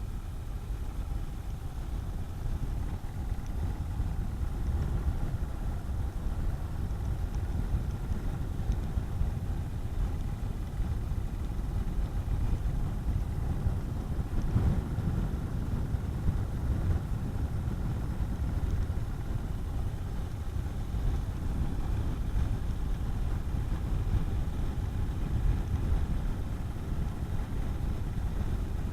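Honda CB400SS single-cylinder engine running at a steady cruise while riding, mixed with low wind rumble on the microphone.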